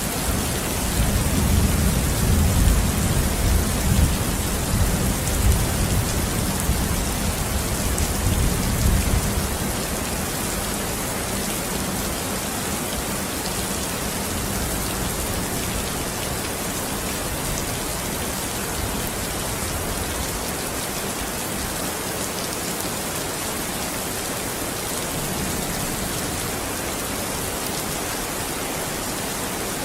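Steady rain falling, with a low rumble of thunder starting about a second in and dying away after about nine seconds, leaving only the rain.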